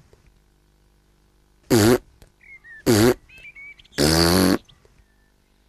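A cartoon piglet hiccupping: three loud hics about a second apart, with faint little squeaks between them.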